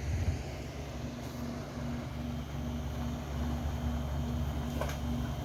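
An engine running steadily: a low drone with a faint hum that pulses about twice a second.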